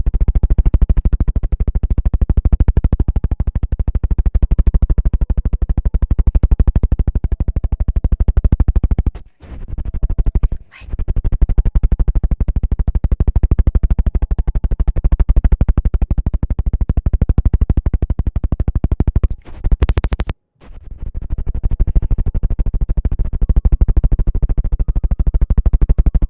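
ASMR trigger sounds made close on the microphone: a loud, very fast, continuous run of clicks and scratches, stopping briefly about nine and ten and a half seconds in and again around twenty seconds, with a short hiss near twenty seconds.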